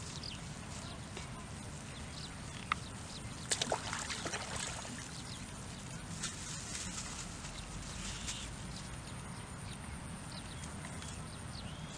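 Open-air field ambience: a steady low wind-like rumble with scattered short chirps and a faint steady high buzz. A single click comes a little under three seconds in, and a short burst of sharp rustling and clicking follows about a second later.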